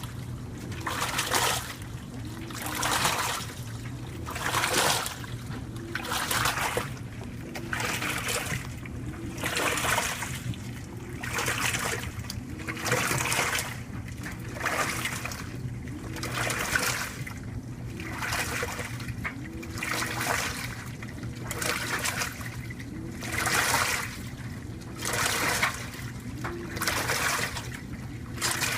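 2012 LG WaveForce top-load washing machine agitating a load on a heavy-soil wash. The wash plate reverses roughly once a second, each stroke bringing a short motor whine and a surge of water swishing through the clothes. A steady hum from a running clothes dryer sits underneath.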